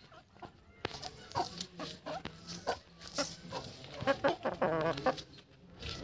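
Young Aseel chickens clucking in short, repeated calls, starting about a second in, with a wavering trill of calls near the five-second mark.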